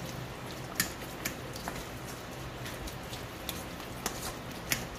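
Ricotta and shredded cheese being stirred in a stainless-steel mixing bowl: soft, wet mixing noise with a handful of short, light clicks of the utensil against the bowl, over a steady low hum.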